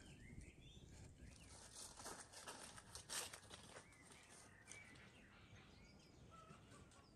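Quiet outdoor ambience with faint bird chirps now and then. A few soft footsteps rustle on grass and fallen leaves about two to three seconds in.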